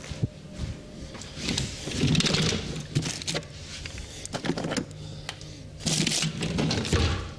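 Hands working during a barber's massage: irregular taps, pats and rubbing on skin and hair, heaviest about two and six seconds in.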